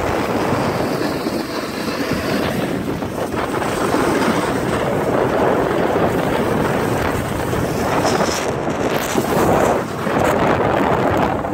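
Wind rushing over the microphone of a camera carried fast down a ski slope: a loud, steady rushing noise that swells and dips slightly.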